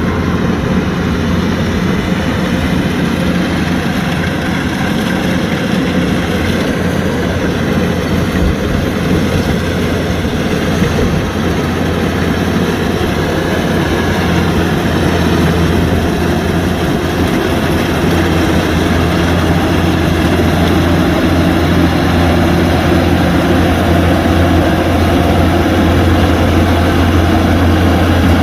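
Kubota DC-105X combine harvester running steadily with a deep diesel engine drone and the machinery working, growing a little louder in the second half.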